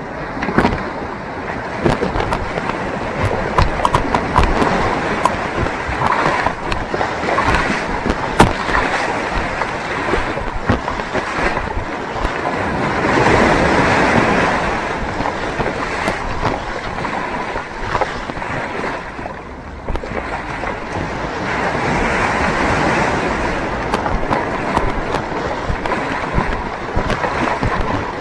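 Ocean surf breaking and water rushing around a fishing kayak as it launches through the waves, the noise surging with each wave, with a few sharp knocks, the loudest about eight seconds in.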